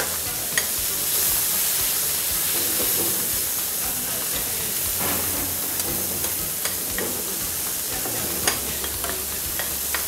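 Chicken strips sizzling in vegetable oil on a flat-top steel griddle as they brown, with a steady hiss. A metal spatula scrapes and taps the steel plate now and then while turning them.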